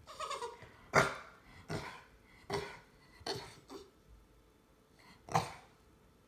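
Dog barking in play during a play-fight: about seven short barks, the loudest about a second in and the last about a second before the end.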